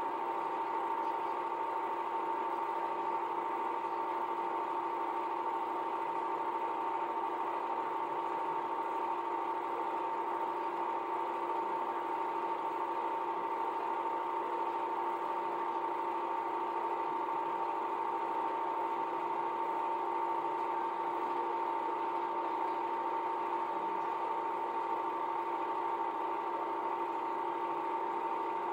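Home-movie film projector running: a steady mechanical whir from its motor and film mechanism, with a constant hum-like tone, unchanging throughout.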